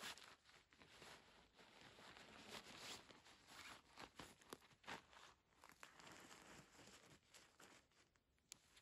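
Faint rustling with many short, light clicks and crackles, thinning out near the end.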